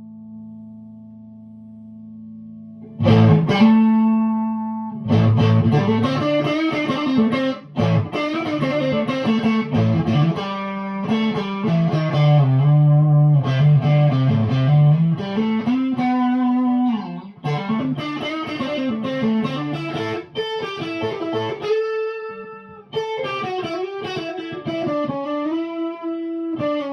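Electric guitar played through a newly built 50-watt Overtone Special-style amplifier. A chord rings on for about three seconds, then a run of chords and single-note lines follows, with several bent notes in the middle.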